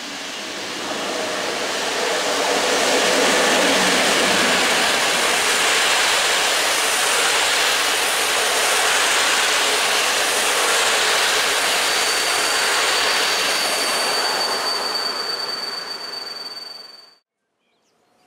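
EP09 electric locomotive hauling a TLK passenger train passing close by: a loud rush of wheels on rail that swells as it arrives and holds steady as the coaches roll past. A thin high wheel squeal joins for the last few seconds before the sound cuts off suddenly.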